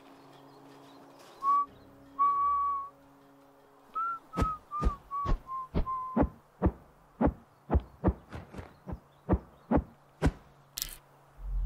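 Film sound-effect track: two high whistle-like tones, then a run of sharp, heartbeat-like thumps about two a second, the first few each topped by a short whistle tone that falls in pitch. A brief hiss comes near the end, then a deep rumble sets in.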